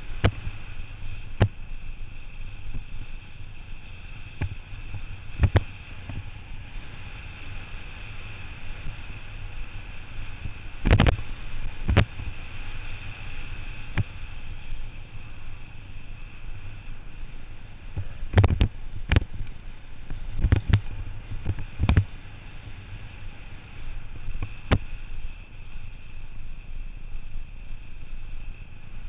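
Wind rushing over the camera's microphone on a fast road-bike descent, with road noise, broken by about a dozen sharp knocks, bunched around the middle, as the bike jolts over the asphalt.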